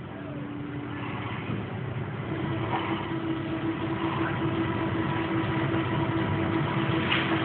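An engine running steadily with a constant hum, getting louder over the first two seconds or so.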